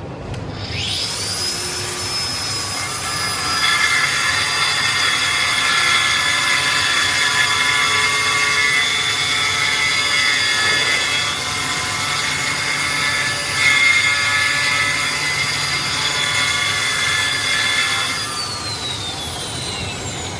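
Bevel Mate EBA-12 handheld electric pipe beveler spinning up with a rising whine, then running louder and rougher for about fourteen seconds as its cutter bevels the end of a pipe. It is then switched off and winds down with a falling whine near the end.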